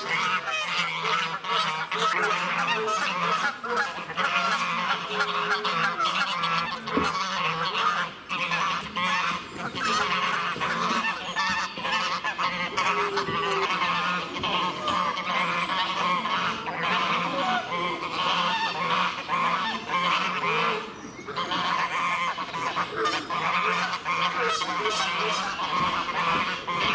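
A flock of white domestic geese honking almost without pause, many calls overlapping, as they squabble on the water.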